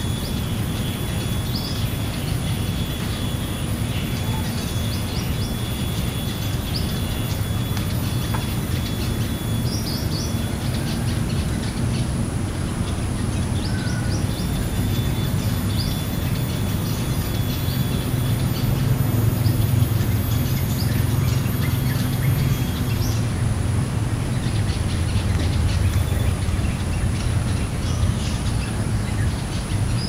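Outdoor ambience: a steady low rumble that grows a little louder past the middle, with many short bird chirps scattered throughout and thin, steady high-pitched tones above.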